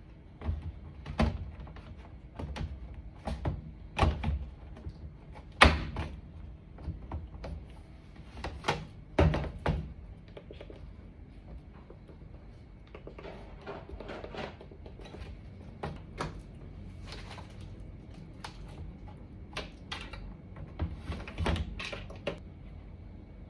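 Irregular knocks, clicks and thunks of hands working on a washing machine's panels and parts during a main-board replacement, the loudest about five and a half seconds in.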